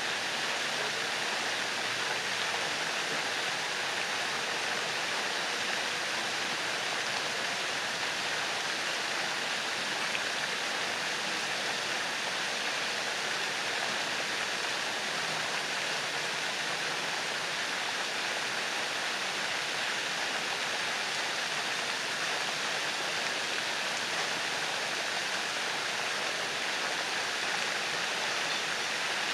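Water fountains spraying in a pond, the jets falling back and splashing onto the water in a steady, even rush.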